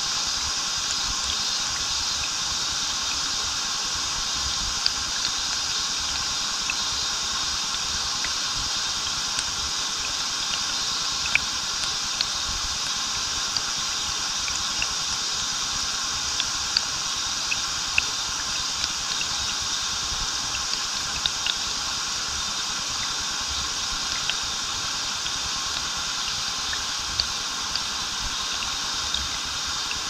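Waterfall and stream water rushing steadily, with scattered small splashes of water landing every second or two.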